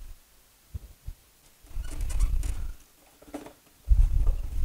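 Handling noise of fitting a nut onto a model's landing-gear mount bolt with pliers: a few small clicks, and twice a low rubbing rumble, about two seconds in and again near the end.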